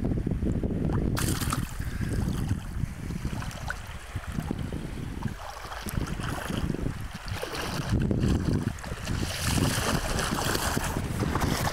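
Wind buffeting the microphone, with small sea waves lapping and splashing in shallow water; the splashing hiss grows louder about nine seconds in.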